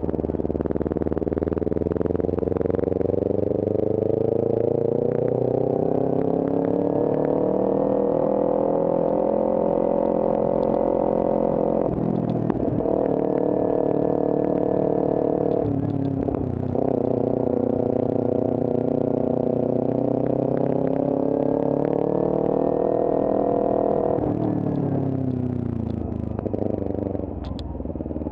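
Motorcycle engine pulling hard through a run of bends: its pitch climbs steadily over the first several seconds, holds high, breaks off briefly twice around the middle on gear changes, climbs again, then falls away near the end as the bike slows.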